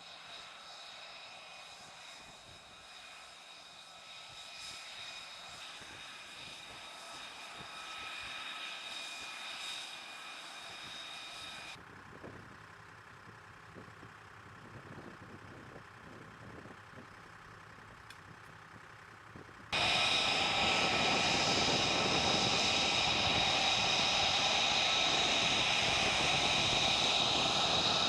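F-35 Lightning II jet engine whining steadily, with several high tones over a rushing noise. It cuts abruptly to a quieter, duller stretch about twelve seconds in, then jumps suddenly to a much louder, close-up whine about twenty seconds in.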